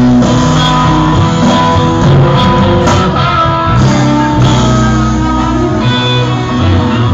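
Live rock band playing: amplified electric guitar over bass and drums, loud and continuous, with regular drum hits.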